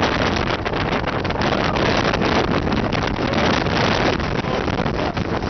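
Strong wind buffeting the microphone: a loud, steady rush of noise heavy in the low end, without a break.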